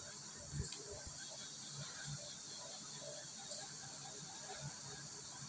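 UV cylinder printer running while its print carriage and UV curing lamp pass along the pole: a steady high-pitched hiss with a thin high whine. A few soft low knocks come in the first second or so.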